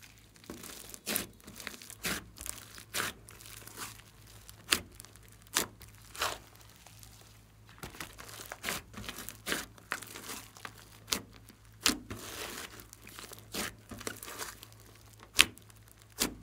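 Thick clay-mixed slime studded with foam beads being stretched, folded and pressed by hand: irregular sticky crackling and tearing, with a few sharp snaps.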